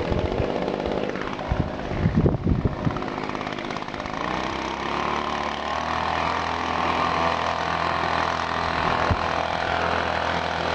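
Echo PB-250LN handheld leaf blower's small two-stroke engine running, with a few knocks of handling about two seconds in; about four seconds in the throttle comes up and it settles into a steady, higher blowing note. It is a new engine still being broken in, held at part throttle.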